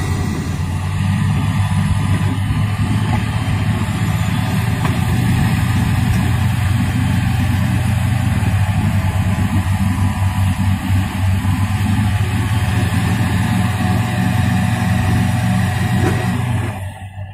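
Heavy vehicle engine running steadily with a strong low tone, cutting off suddenly near the end.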